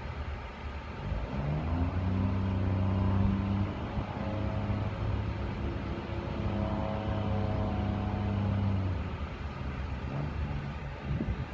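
Heavy diesel engine of yard equipment revving up and holding, its pitch stepping up and down twice before it eases off near the end, over a low rumble.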